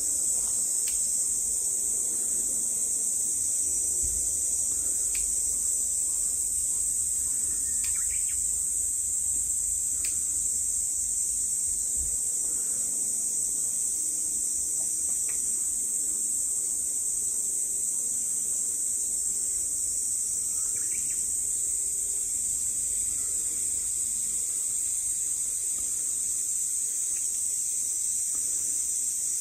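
Steady high-pitched insect chorus that keeps on without a break, with a few faint ticks beneath it.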